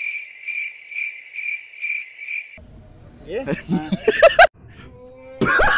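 Cricket chirping sound effect, the stock 'awkward silence' gag: a steady high chirp pulsing about twice a second over an otherwise silent track, cutting off after about two and a half seconds. Men's voices and laughter then take over, loudest near the end.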